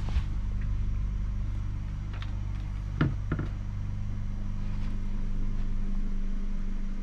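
Steady low hum inside a stationary sleeper-train cabin, with two short knocks about three seconds in as a wooden cabin cupboard door is handled and shut.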